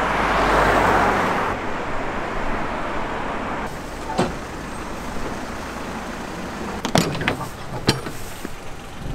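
Road traffic noise that swells in the first second and a half as a vehicle goes by, then metal clunks and clicks of a box truck's rear cargo door and latch being handled, the sharpest about seven and eight seconds in.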